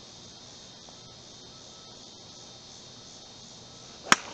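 A golf club striking the ball once, a single sharp crack near the end, over a steady high-pitched insect buzz.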